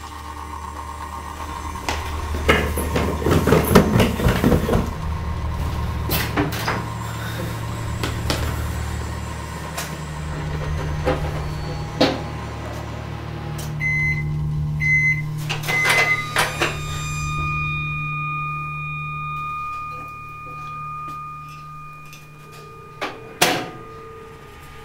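Microwave oven running with a steady low hum, then beeping three times about a second apart as its timer runs out. Knocks and clatter come early, and two sharp knocks near the end.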